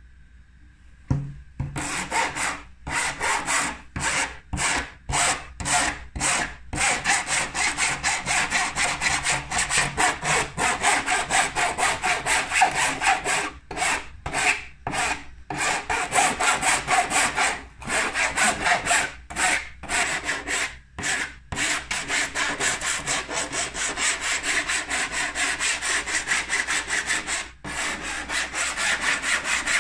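A metal hand file rasps back and forth over the welded seam of a green 3D-printed plastic IOM model yacht hull, smoothing the joint between printed sections. It starts about a second and a half in, with quick repeated strokes broken by short pauses at first, then runs almost without a break.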